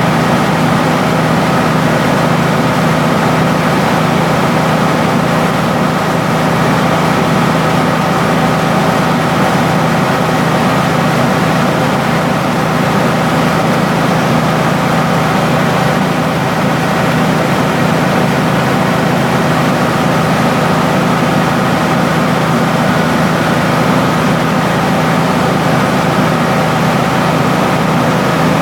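Rice milling machine running at a steady pace: a loud, constant mechanical drone with steady humming tones over a rushing noise, unchanging throughout.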